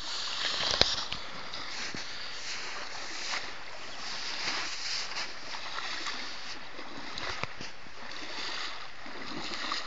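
Floodwater sloshing and splashing: a steady rushing hiss with scattered sharp splashes, the loudest about a second in.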